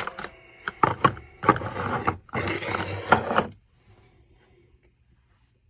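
Tools and parts being handled on a workbench: a sharp knock, a brief metallic ring with a few clicks, then two stretches of scraping and rummaging.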